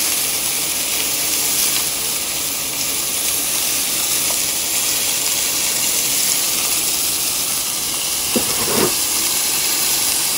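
Thinly sliced beef sizzling steadily in hot oil in a cast-iron pan, with two short knocks near the end.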